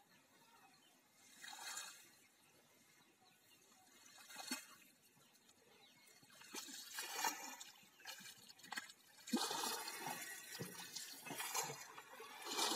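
Shallow muddy water sloshing and splashing as a fishing net is pulled through it. The sound comes in scattered bursts at first, then grows louder and more continuous from about nine seconds in.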